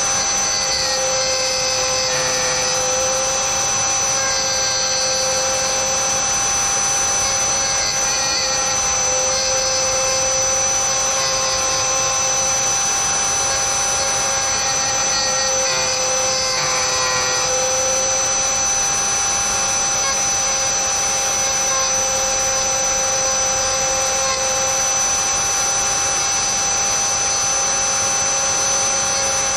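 Dremel rotary tool in a drill-press stand milling slots in hard PVC sheet. It gives a steady high motor whine with the bit's cutting noise over it, wavering slightly in pitch now and then as it cuts.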